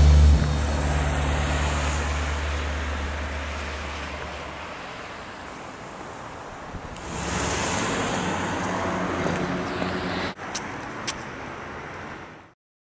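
Road traffic noise with a car passing, loudest about seven seconds in. The low tail of a music track fades out in the first few seconds. Two short clicks come near the end, and the sound then cuts off abruptly.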